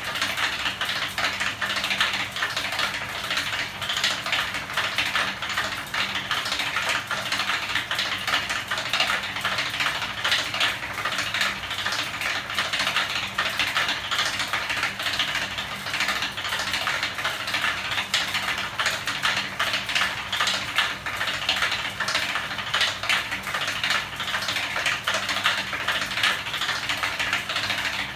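Homemade magnet-driven 'ornithopter engine' mechanism running fast, with its bicycle ratchet and metal parts making a continuous rattling clatter of rapid clicks. A faint steady hum runs underneath.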